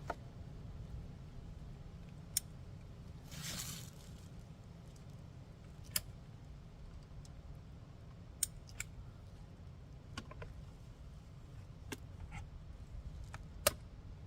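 Handling noise as a pair of gloves is pulled on: a short rustle about three and a half seconds in, then scattered sharp clicks and snaps a second or more apart, over a steady low hum.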